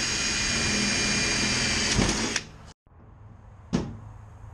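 Cordless drill running steadily with a high whine as it bores holes through the sheet-metal patch panel, stopping about two seconds in. Near the end, a single sharp click as a cleco fastener is set with cleco pliers.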